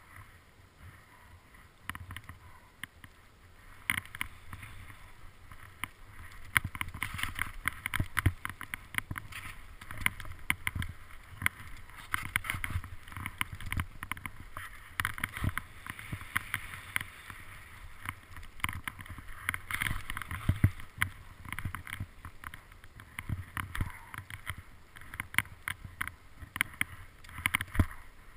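Skis sliding and turning through soft powder snow, heard through a helmet-mounted action camera's housing. A rushing hiss runs with frequent sharp clicks and low thumps, and it grows louder a few seconds in as the run picks up.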